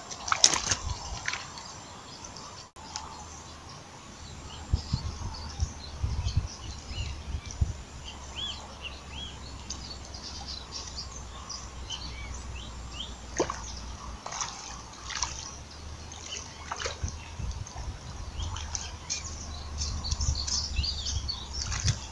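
Small birds chirping in short repeated calls, with a few sharp knocks and a steady low rumble underneath.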